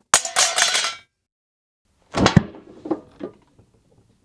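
Metal lid of a tin can clattering and ringing after an icing-sugar dust explosion inside the tin has blown it off. There is a sharp, loud clatter just after the start, then more knocks and clinks about two seconds in that ring briefly and die away.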